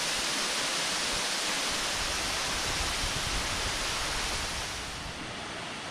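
Waimoku Falls, a tall waterfall, making a steady rushing hiss of falling water that softens a little about five seconds in.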